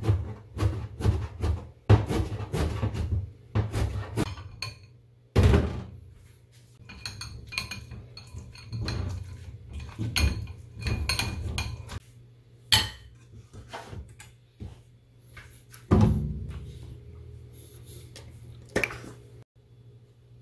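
A kitchen knife chopping sprouts on a plastic cutting board in quick, uneven knocks, then a metal spoon scraping and clinking against a mesh sieve as it presses tofu through, with a few louder knocks along the way. A low steady hum runs underneath.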